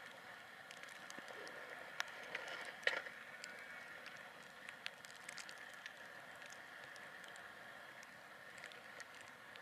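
Distant steam locomotive working a train, heard faintly as a steady rushing sound, with scattered small clicks and one sharper knock about three seconds in.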